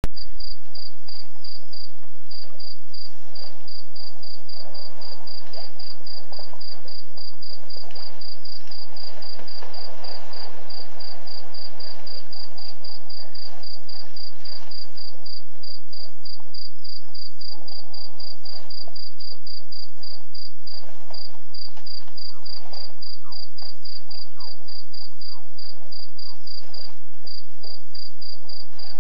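Crickets chirping in a fast, even, unbroken pulse, over a steady low hum and fainter irregular rustling.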